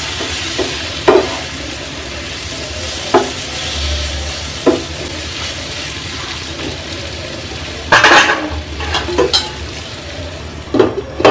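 Spiced raw banana slices sizzling in a nonstick frying pan while a spatula stirs and scrapes them, with short knocks of the spatula against the pan and a louder clatter about eight seconds in.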